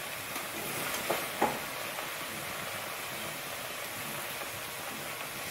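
Cut pieces of giant taro sizzling steadily in a steel wok, with two short sharp clicks a little after a second in.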